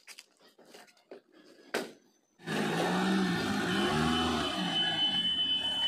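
A few light clicks and a sharp knock as the car door is handled and shut, then, about two and a half seconds in, a Maruti Suzuki Zen hatchback's engine starts up suddenly and runs, its revs rising and falling.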